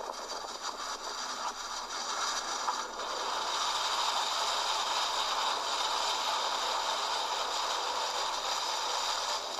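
Steady rushing storm noise of wind and rain during a tornado.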